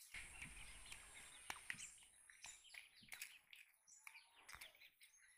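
Faint chirping and twittering of small birds, with two sharp clicks about a second and a half in.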